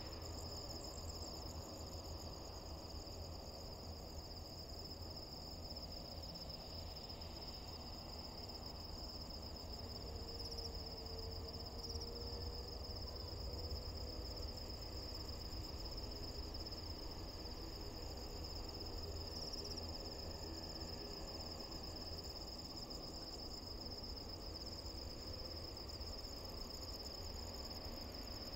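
Night insects chirring in a steady, high, pulsing trill, over a faint low rumble.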